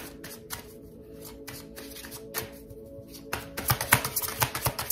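A deck of oracle cards shuffled and handled, a run of light card clicks and flicks that grows denser and louder about three and a half seconds in. Soft background music plays underneath.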